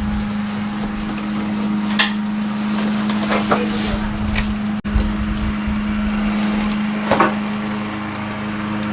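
Grill parts and cardboard and styrofoam packing being handled: a few short knocks and rustles about two, three and a half and seven seconds in, over a steady hum.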